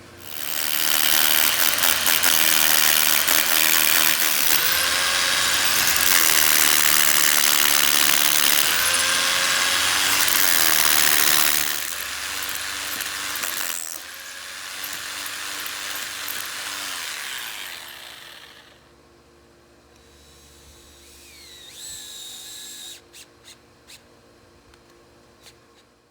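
Power drill drilling into the concrete at the base of a pool enclosure for the corner-cable anchor plate. It runs hard for about eleven seconds, then runs lighter and stops about three quarters of the way through, followed by a few light clicks near the end.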